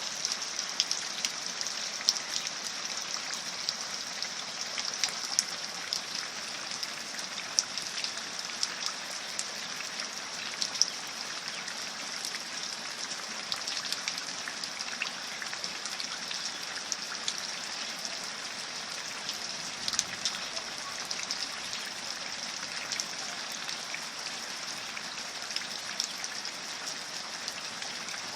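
Steady rain, with many separate drops ticking throughout.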